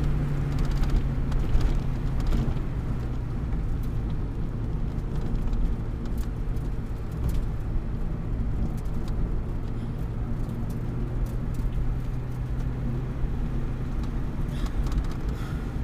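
Car driving, with a steady engine hum and road noise heard from inside the cabin; the engine note holds an even pitch.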